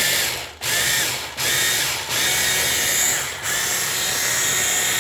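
Electric blender chopping onions into very small pieces, run in several pulses with brief dips between them.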